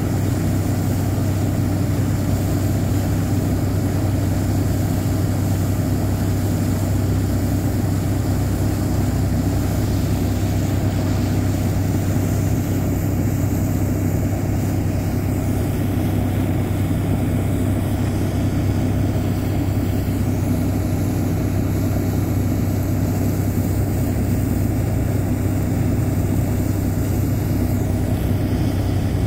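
A boat engine running steadily, a constant low drone with a strong hum and no change in speed.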